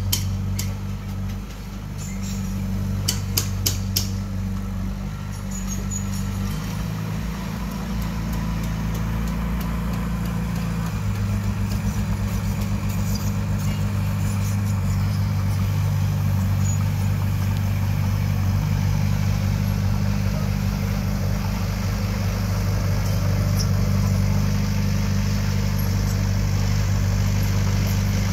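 Diesel engine of heavy earthmoving machinery running steadily, with a few sharp clicks about three seconds in; the engine grows somewhat louder after the first few seconds and then holds.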